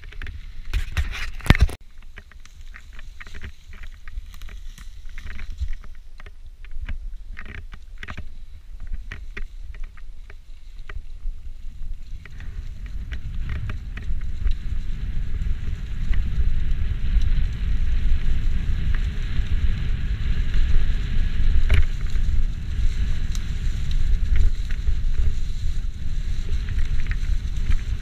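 Mountain bike riding a rough trail: knocks and rattles of the bike over the ground in the first seconds, then a low rumble of wind on the microphone and tyre noise that grows louder from about halfway.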